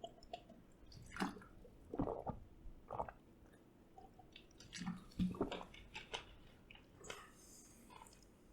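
A person drinking water close to a microphone: a handful of soft gulps and swallows, roughly one a second, with quiet pauses between.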